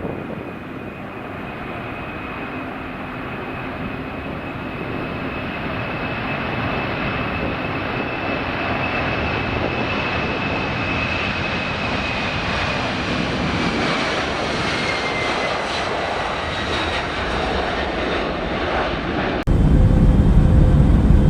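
Jet airliner engines running, growing steadily louder, with a high whine that holds and then dips slightly in pitch. About two seconds before the end it cuts suddenly to a louder, deeper rumble with a steady low hum.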